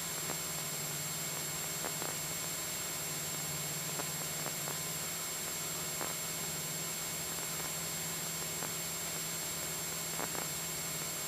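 Steady hiss over a low, even drone from the Cessna 172SP's engine and propeller in cruise, with a few faint clicks.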